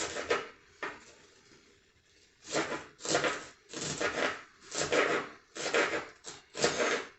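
Knife slicing vegetables on a cutting board: a couple of light clicks, a short pause, then steady cutting strokes about one every second.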